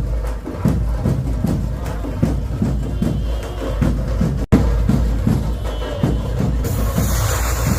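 Music with a steady drum beat, about two low drum strokes a second. The sound cuts out for an instant about halfway through, and a hiss joins in near the end.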